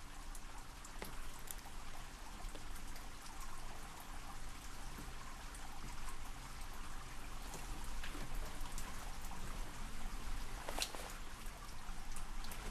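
Shower water running in a tiled shower room: a steady spray hiss with scattered drips, and a sharper click about eleven seconds in.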